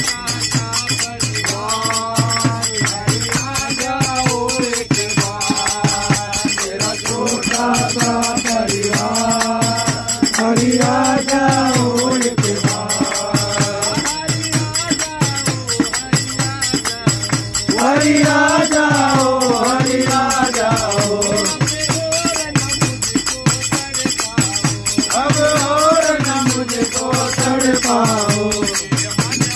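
Group of men singing a Hindu devotional bhajan in unison, in long phrases, to a steady rhythm of a hand-struck frame drum (dafli) and jingling small brass hand cymbals (manjira).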